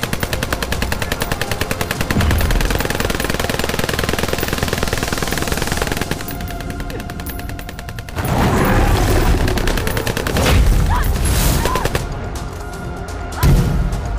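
Film sound effects under a music score: a rapid string of sharp cracks for about six seconds, then heavy low booms, and a single hard hit near the end.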